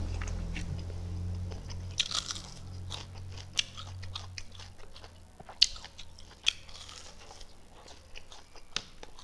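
Close-miked chewing and biting of a crispy chicken wing: wet mouth sounds broken by many sharp crunches and clicks, irregularly spaced.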